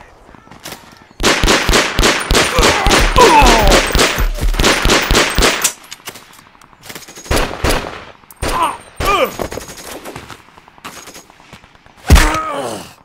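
Automatic submachine-gun fire: faint scattered shots at first, then a long loud rapid burst lasting several seconds, followed by shorter bursts. Near the end there is a short loud sound that falls in pitch.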